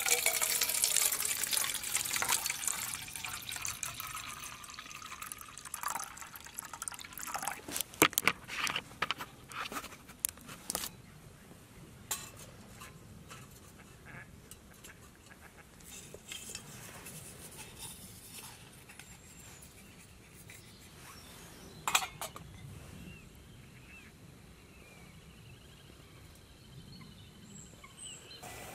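Water poured from a plastic bag into a metal camping pot, loud for the first few seconds and then tailing off. After it come scattered metal knocks and clinks, the sharpest about a third of the way in and again about three quarters of the way through.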